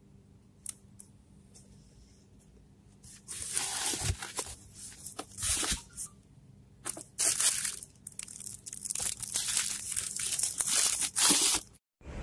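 Packaging being torn and crinkled while a product is unwrapped: irregular loud bursts of tearing and rustling that start about three seconds in, after a few faint clicks.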